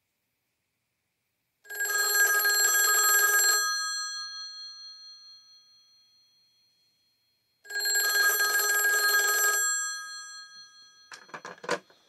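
Western Electric 500DM rotary telephone's bell ringing: two rings of about two seconds each, about four seconds apart, the gong tones dying away slowly after each. Near the end comes a short clatter as a handset is hung up on the other phone.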